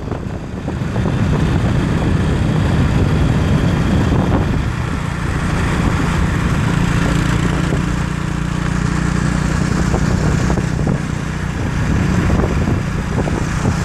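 Small motorcycle engine running at a steady cruising speed, heard from the rider's seat.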